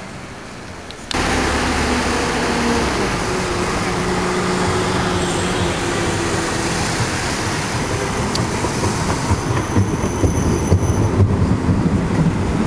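Siemens Combino tram approaching and passing close by: a steady electric drive hum with several held tones, swelling into an uneven rumble and clatter of wheels on rail as it goes past, with a faint high squeal coming in near the end. It starts suddenly about a second in, after a quieter stretch.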